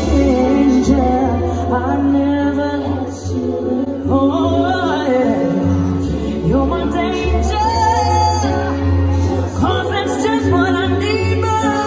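A woman singing live with a band, her voice sweeping up and down in quick melismatic runs (a vocal riff) over a steady bass line.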